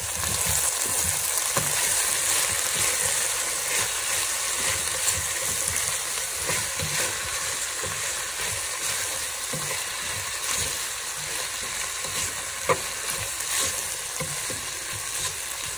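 Chopped potatoes and broad beans sizzling as they fry in a pan, stirred and scraped around with a wooden spatula, with one sharp knock about three-quarters of the way through.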